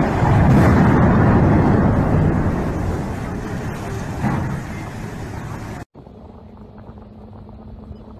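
Loud rushing roar of a huge splash as a large ship plunges into the water, peaking in the first couple of seconds and slowly fading, then cutting off suddenly about six seconds in. After that comes a much quieter steady rumble with a faint low hum.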